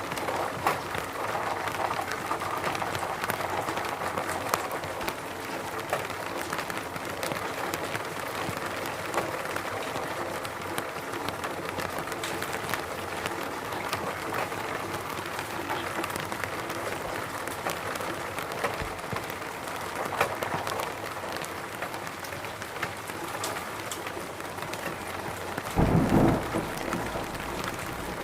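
Steady rain falling, with many scattered drop impacts. A short low rumble of thunder comes near the end.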